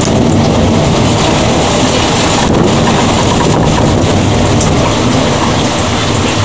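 Thunderstorm at night: a loud, steady rushing rumble of heavy rain and storm noise with no single clap standing out.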